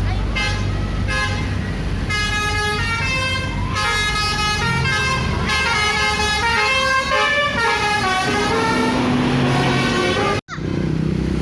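Bus 'telolet' horn: a few short toots, then from about two seconds in a several-second melody of stepping multi-tone horn notes, over a bus engine running. The sound cuts out briefly near the end.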